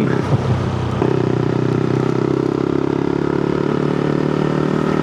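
Honda Grom MSX125SF's 125 cc single-cylinder engine running at a steady cruise under way. About a second in, the engine note steps up as more throttle is given, then holds steady.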